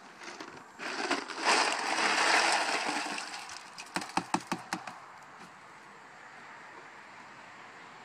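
A few seconds of rustling, then a quick run of about eight sharp clicks and rattles, about four seconds in: ice cubes knocking in a plastic bucket as it is lifted off the ground.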